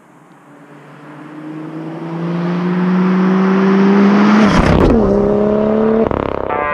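BMW M2 driving by at speed. Its engine and exhaust note swells and rises in pitch as the car approaches, then drops sharply in pitch as it passes about five seconds in, and it keeps accelerating away.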